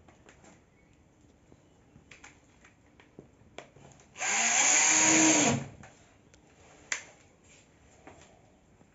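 Cordless drill-driver running for about a second and a half, its motor winding up and then back down as it drives a screw. The screw fixes a plasterboard washer that holds mineral wool insulation between ceiling joists. Light knocks and clicks can be heard before and after it, with a sharp click shortly after the drill stops.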